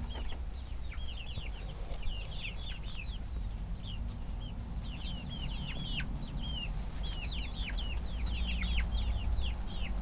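A flock of half-grown chickens peeping while they feed: many short, high, falling chirps, several a second and overlapping, over a steady low rumble.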